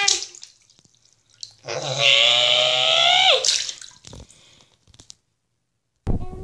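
Water sloshing in a filled bathroom sink as a hand stirs it. About two seconds in comes a long, high-pitched vocal squeal that drops in pitch at its end. The sound cuts off suddenly near the end.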